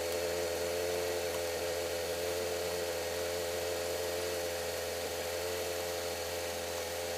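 Steady, even mid-pitched electric hum, like a small motor running, with no change in pitch.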